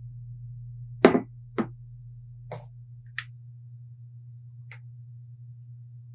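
A few sharp clicks and knocks of kitchen utensils against glass mixing bowls: five in all, the loudest about a second in and the rest fainter. A steady low hum runs underneath.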